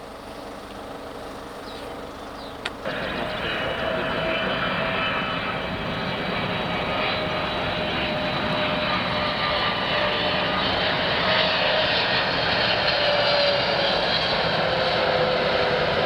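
Cargo plane's engines growing steadily louder as it approaches, with a whining tone that slowly drops in pitch. A short click sounds about three seconds in.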